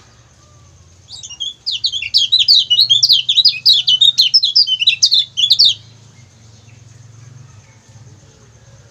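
Lemon-bellied white-eye (kecial kuning) giving a rapid string of short, high 'ciak ciak' chirps. The chirps start about a second in and stop sharply after about five seconds.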